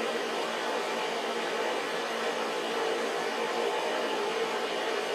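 A steady machine hum with an even hiss, holding the same level throughout.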